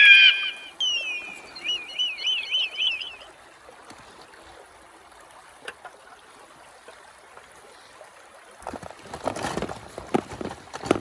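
A bird calls loudly at first, then gives a few falling whistles and a quick run of rising-and-falling notes for about three seconds. After that a stream trickles faintly, and near the end there is a burst of rustling noise.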